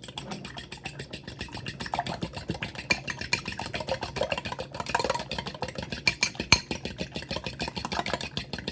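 Eggs and seasonings being beaten in a bowl: a utensil clicks rapidly and evenly against the bowl, several strokes a second, with a few louder knocks.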